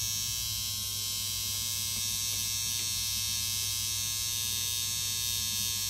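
Tattoo machine buzzing steadily at an even pitch as the needle works into the skin.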